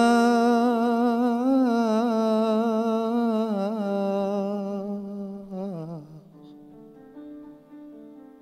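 A man's voice holds one long sung note with vibrato and small ornamental turns in improvised Jewish liturgical singing, over soft piano. About six seconds in the voice slides down and stops, leaving quiet sustained piano chords.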